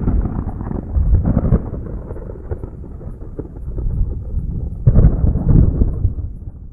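A thunderclap rolls on into a long, low rumble with crackling peaks. A second loud crack comes about five seconds in, then the rumble dies away.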